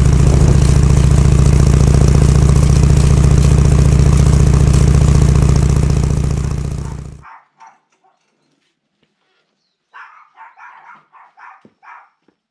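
Harley-Davidson Shovelhead FLH's air-cooled V-twin running steadily, then dying away about seven seconds in. After a few seconds of quiet, an animal gives a quick run of short calls.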